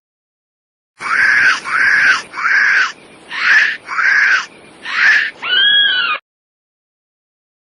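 A series of about seven shrill, screeching creature calls, each rising and then falling in pitch, in quick succession, the last one a clearer, drawn-out cry; a sound effect for a prehistoric animal. The calls start about a second in and stop abruptly a second and a half before the end.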